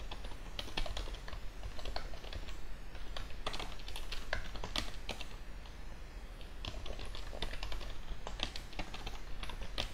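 Typing on a computer keyboard: quick, irregular runs of key clicks with short pauses between.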